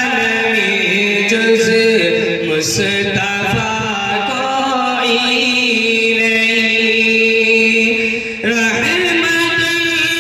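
A man chanting a devotional song into a handheld microphone, holding long, wavering notes, with a brief pause for breath about eight seconds in.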